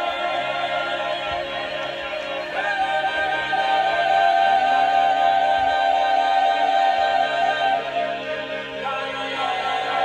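Mixed choir singing slow, sustained chords in a contemporary choral piece. The held notes shift to a new chord about two and a half seconds in, swell louder through the middle, and change again near the end.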